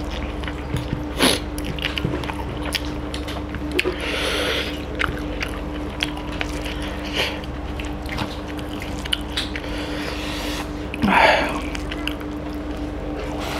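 Close-miked eating by hand: fingers squelching curry-soaked rice and chicken, with chewing and lip smacks as many small clicks. There are two longer breathy sucking sounds, about four seconds in and, louder, about eleven seconds in.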